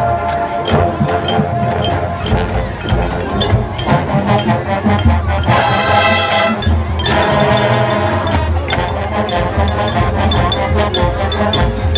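High school marching band playing: sustained brass chords over steady percussion, swelling to a loud full chord about halfway through.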